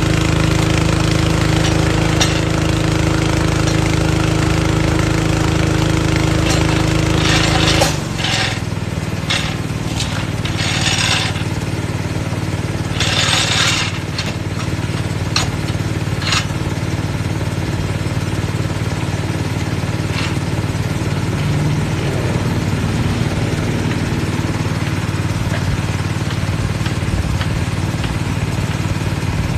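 Small engine of a portable air compressor running steadily. About eight seconds in its note drops and settles lower, and scattered clanks and short bursts of noise sound over it for several seconds.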